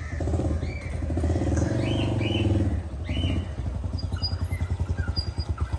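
Motorcycle engine running at low revs as the bike rides out through a gate and down a ramp, fuller in the first half and settling to an even beat about halfway through. Birds chirp briefly several times.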